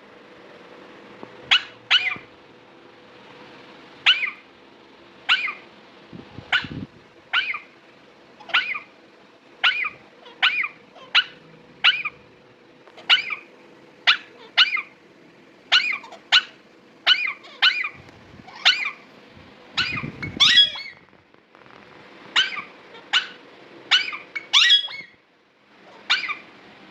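Two parrots trading short, sharp squawks, about one a second, with a few louder, rougher calls about two-thirds of the way through.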